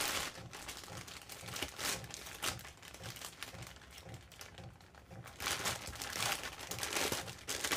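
Faint crinkling and rustling of packaging being handled, with scattered small clicks of parts being picked up and set down, a little busier near the end.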